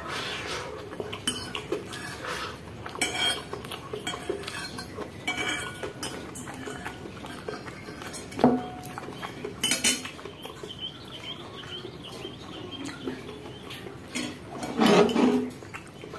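A metal fork and spoon scraping and clinking against a ceramic bowl as the last noodles are scooped up, in short irregular strokes. There is a louder clatter of the bowl near the end.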